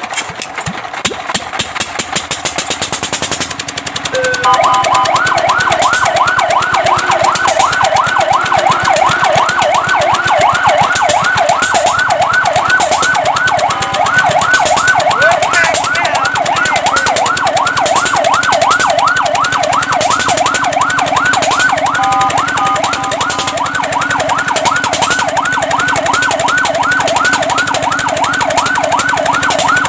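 Fire truck siren on a fast yelp, rising sweeps repeating several times a second, with short steady-tone breaks twice. It is preceded by a fast rattling pulse for about the first four seconds.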